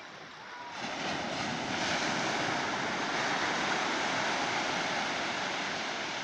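Surf washing and breaking on a shallow beach: a steady rushing noise that swells about a second in and holds.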